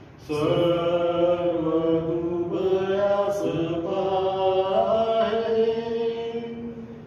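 A man singing a Marathi hymn slowly, holding long notes that step from one pitch to the next. The singing begins just after a short pause at the start and tails off near the end.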